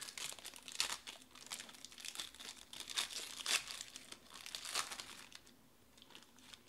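Foil trading-card pack wrapper being torn open and crinkled by hand, a run of sharp crackles and rustles that dies down near the end.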